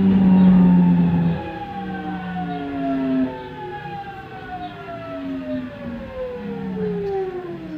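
Nankai 1000 series electric train's inverter and traction motors whining under way, several tones gliding slowly down in pitch together, over a louder low hum in the first second and a half.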